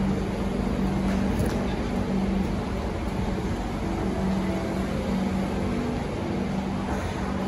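Steady low hum of a Siemens C651 metro train standing at the platform with its doors open, one humming tone swelling and fading, over the even noise of an underground station.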